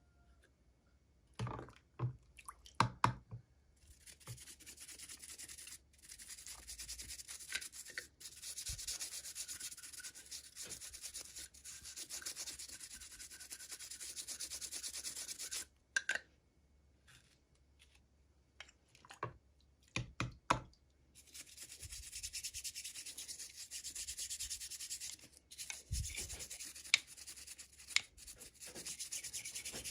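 Packaging being rubbed by hands while a toy is unboxed. It comes in two long steady stretches of about ten seconds each, with a few short knocks and clicks between them.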